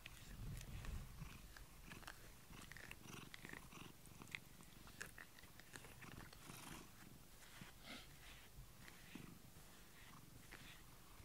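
Domestic cat purring faintly while a grooming brush strokes its head and cheek, with soft scratchy brushing sounds over the purr.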